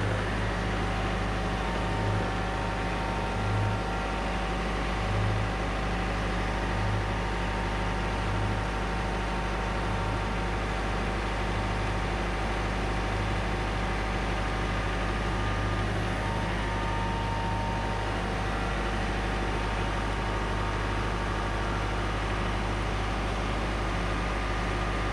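John Deere 4066R compact tractor's diesel engine running steadily at low speed while its front loader sets down a heavy load, with a slight pulsing in its low note about every second and a half during the first ten seconds.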